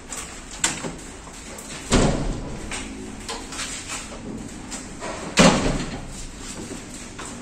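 Sharp knocks and bangs from hands-on work at a metal electrical meter cabinet, a few light ones and two heavy ones, the loudest about five and a half seconds in.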